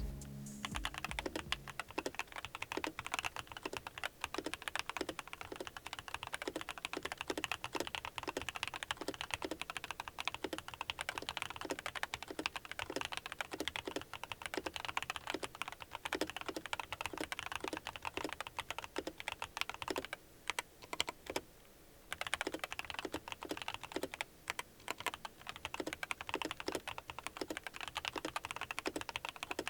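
Continuous fast typing on a mechanical keyboard, a sound test of same-profile keycaps in PBT and ABS plastic. There is a brief pause about two-thirds of the way through.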